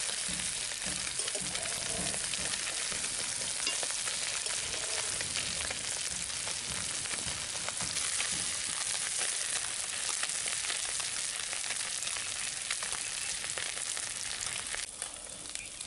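Small chelwa fish sizzling steadily in hot mustard oil in an iron kadhai while a metal spatula turns them over, scraping and clicking against the pan. The sizzle eases a little near the end.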